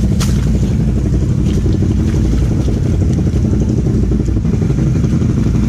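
ATV engine idling steadily, low and even, with a single brief click about a quarter-second in.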